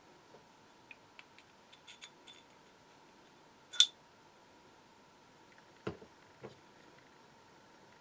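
Small machined aluminium, steel and brass model steam engine parts being handled and fitted together by hand: a run of light metallic ticks, then one sharp click just before four seconds in. A duller knock follows a couple of seconds later with a lighter one after it, over a faint steady hum.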